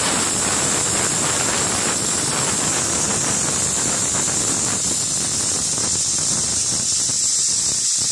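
A steady, even hiss, its lower part thinning out near the end.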